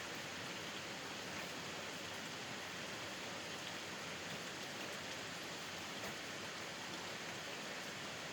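Steady rain falling, heard from a porch: an even hiss with a few faint separate drop ticks.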